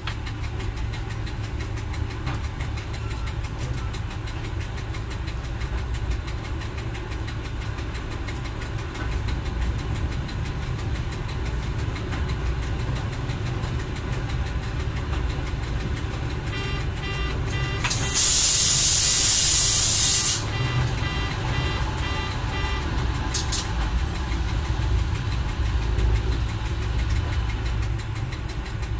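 Fiat Y1 diesel railcar running slowly along the track, a steady low engine drone with track noise. A little past halfway, a quick series of short repeated tones starts, and over it comes a loud hiss lasting about two seconds.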